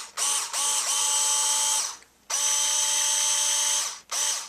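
Genesis 7.2-volt lithium-ion cordless screwdriver whirring as it spins a loosely held drill bit in its hex chuck, in short bursts. There is a brief blip, then two runs of about one and a half to two seconds with a short pause between them, then another brief blip near the end, each spinning up and winding down.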